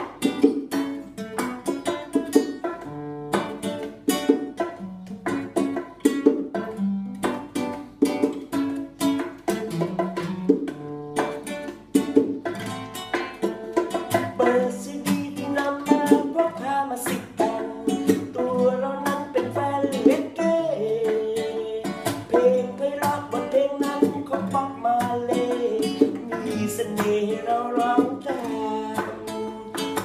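Acoustic reggae played on a strummed acoustic guitar and hand-played bongo drums. A man's singing comes in about halfway through.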